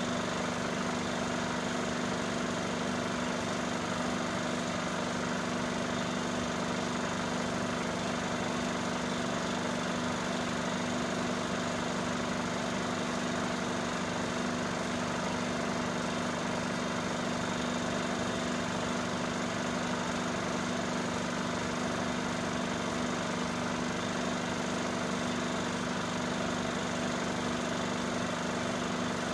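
Film projector running: a steady mechanical drone with fixed low tones, unchanging throughout.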